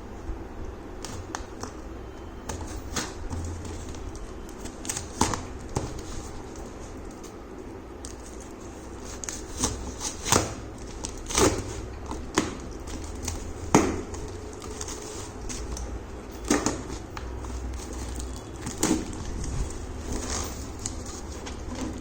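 Cardboard packaging being handled and opened: irregular taps, knocks and scrapes, a few sharper clicks between about ten and fourteen seconds in, over a steady low hum.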